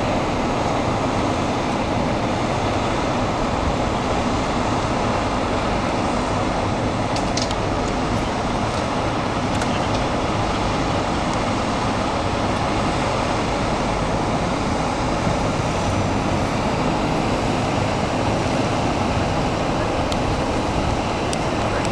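Fire engine's diesel engine running at a steady idle, a constant loud rumble, with a few faint clicks over it.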